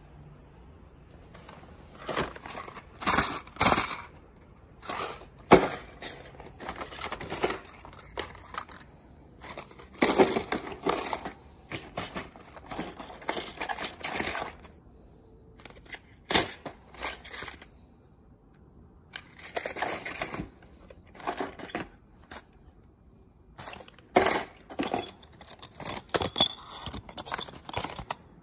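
Clear plastic blister packs of HeliCoil thread-repair kits crinkling and clacking against one another as a hand sorts through them in a toolbox drawer, in irregular bursts with short pauses.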